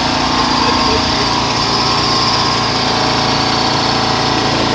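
Engine-driven grain mill (molino) running with a steady drone while grinding roasted chiles, tomatoes and seeds into tamale recado.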